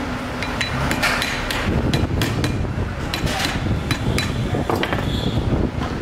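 Irregular sharp metal knocks and clinks, a few a second, as a hammer taps a washing-machine motor stator down onto its toothed metal housing, over a steady low background rumble.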